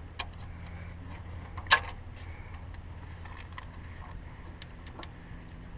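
Sharp metallic clicks and light taps of hand tools and a fuel injector clamp being worked into place in a diesel engine. The loudest click comes just under two seconds in, over a steady low hum.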